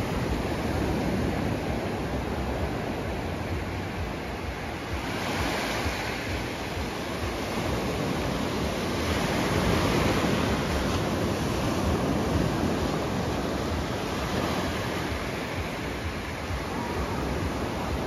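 Small Atlantic surf breaking close by and washing up the sand in a continuous rush that swells and eases with each set of waves, loudest about ten seconds in.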